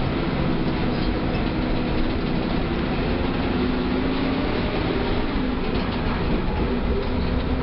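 Mercedes-Benz OF 1318 bus's front-mounted diesel engine running steadily, with a deep rumble and a hum of engine tones over a constant mechanical noise.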